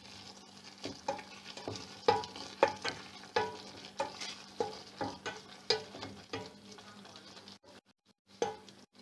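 A spoon stirring and scooping egg curry in a stainless steel pot, knocking against the pot about every half second over a steady low hum. The sound cuts out briefly near the end.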